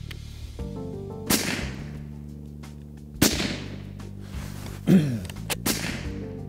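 Three shots from a moderated Sako 85 bolt-action rifle, about two seconds apart, each a sharp crack that dies away quickly, over background music.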